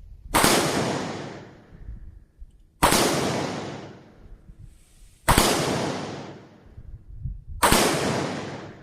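Handgun fired four times at a slow, even pace, one shot about every two and a half seconds, each crack ringing out for over a second.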